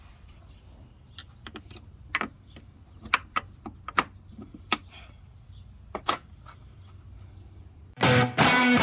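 Scattered light clicks and taps of hardware and hand tools as a Jeep hood latch is worked into place, about a dozen over five seconds. Guitar music starts loudly near the end.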